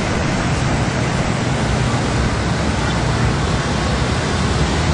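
Steady traffic noise of motorbikes riding through shallow floodwater, engines and water spray blended into one even wash of sound.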